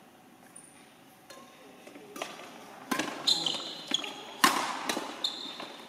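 Badminton rally: rackets striking the shuttlecock with sharp cracks, about five hits starting about two seconds in, with sports shoes squeaking on the court floor between them. The hits ring in a large sports hall.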